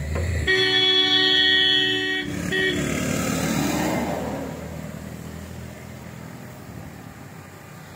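A vehicle horn honks steadily for nearly two seconds, then gives a short toot. Then a passing vehicle's engine swells and fades away.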